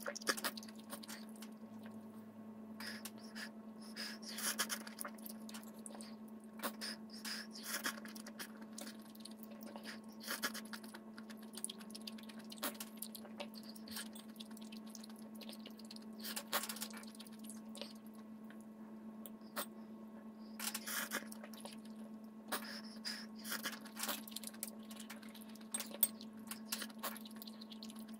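Eating sounds from a bowl of ramen: scattered short slurps, chewing, and chopsticks and a metal spoon clicking and scraping against a ceramic bowl, over a steady low hum.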